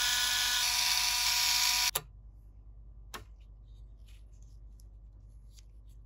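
Small handheld electric duster running at full speed for about two seconds, a steady motor whine over a rush of air as it blows dust off the console's frame, then cutting off suddenly. A faint handling click follows a second later.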